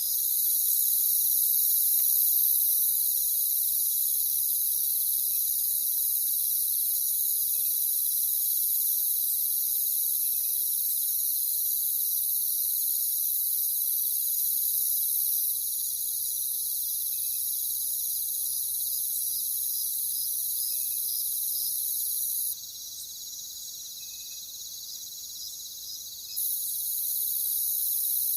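Steady high-pitched chorus of insects, with faint short chirps every few seconds. The chorus drops in level for about four seconds near the end, and no owl hoots are heard.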